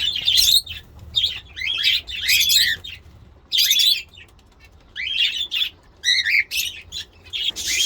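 Pet budgerigars and finches chirping and chattering in short clusters of high notes, half a second to a second long, with brief pauses between them.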